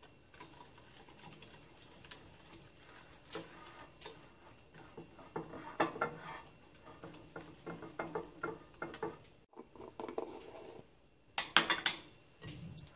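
A utensil stirring wet banana bread batter in a bowl, with irregular clinks and scrapes against the bowl. The loudest knocks come near the end.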